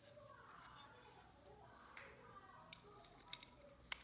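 Faint handling noise of small speaker parts on a table: a few sharp clicks and taps, the loudest just before the end.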